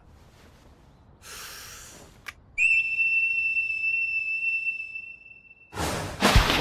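A steady high whistle held on one pitch for about three seconds. A soft whoosh and a click come before it, and a loud rush of noise follows near the end.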